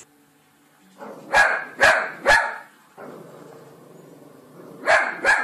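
Young Cavalier King Charles spaniel barking: three sharp barks in quick succession about a second in, then two more near the end.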